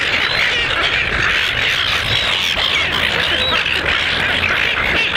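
A feeding flock of silver gulls calling all at once, many high, short squawks overlapping into a steady din.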